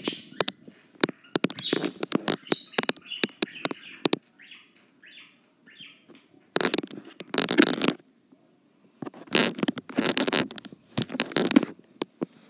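Bursts of rustling with sharp clicks from handling in a small-animal cage with hay and litter. The loudest bursts come about six and a half seconds in and again from about nine to eleven and a half seconds in.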